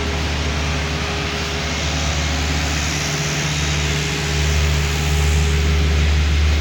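Heavy diesel road-paving machinery running steadily with a deep engine rumble, getting louder about four seconds in.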